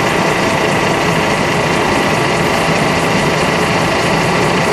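Ormac VTS shoemaking machine running steadily: a constant mechanical drone with a high, unchanging whine.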